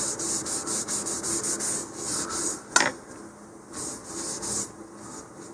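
Paper towel rubbing quickly back and forth on a fiberglass rocket body tube, wiping off stray epoxy, about four or five strokes a second. A sharp tap a little under three seconds in, then a few slower, fainter wipes.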